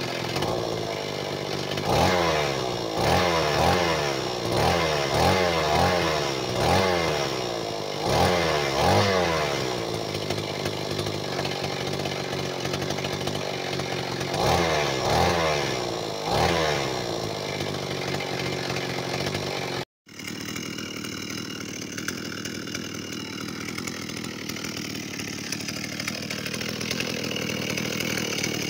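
Old Echo backpack brush cutter's small two-stroke engine running, its throttle blipped again and again so it revs up and drops back about once a second, in two bursts. After a cut the engine runs on at an even, steady speed.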